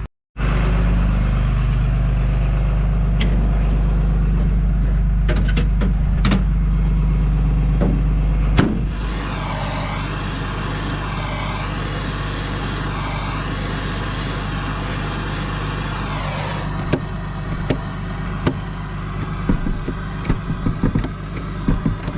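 Diesel engine idling steadily, loud and close for the first eight seconds, then quieter with a wavering higher tone over the idle and scattered knocks in the last few seconds.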